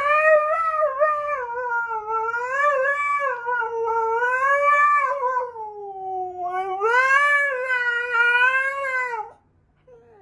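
Siberian husky howling, a long wavering 'singing' howl that slides up and down in pitch, sinks lower about six seconds in, rises again and stops about nine seconds in.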